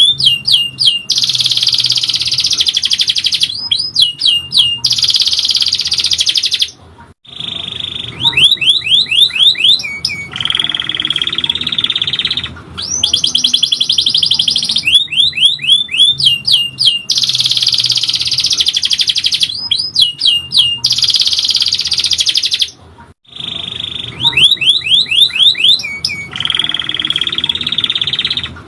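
Domestic canary singing a long, loud song: dense rapid trills alternating with runs of quick sweeping whistled notes, with brief breaks about a quarter and four-fifths of the way through. The same sequence of phrases repeats about every sixteen seconds.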